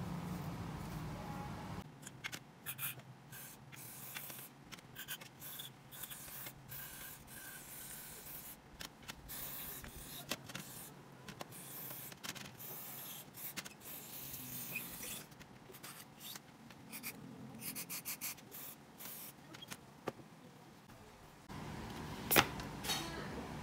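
Aerosol carburetor cleaner sprayed through its straw nozzle onto a disassembled motorcycle carburetor in many short, irregular hissing bursts, with small clicks of the metal parts being handled. A sharp knock near the end is the loudest sound.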